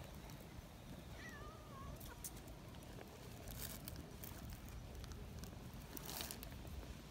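A young cat gives one short wavering meow about a second in, with a few faint rustles and taps around it.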